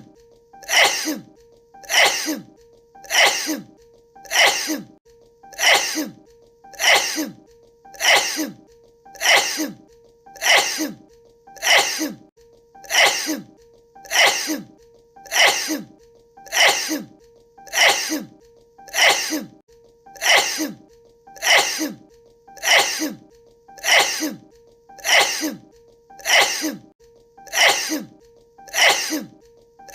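The same sneeze repeated over and over in a tight loop, one sharp sneeze a little more than once a second, over a faint steady tone.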